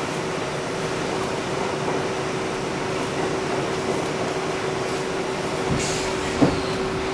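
Inside an R62A subway car running along a station platform as it slows: a steady rumble of wheels and running gear with a constant hum over it, and one sharp clunk about six seconds in.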